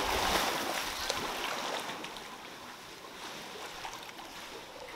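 A person plunging into a swimming pool with a loud splash, followed by the water churning and lapping as it slowly settles.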